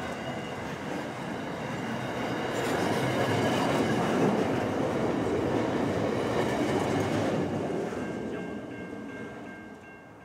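Freight train wagons rolling past at track level, their steel wheels running and clattering on the rails. The last wagon passes about eight seconds in, and the sound then fades as the train moves away.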